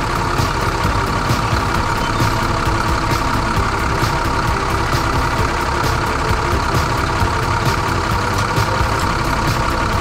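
Tractor engine running steadily.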